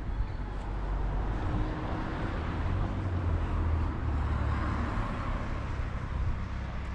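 Road traffic: a motor vehicle passing, its noise swelling to a peak about five seconds in, over a steady low rumble.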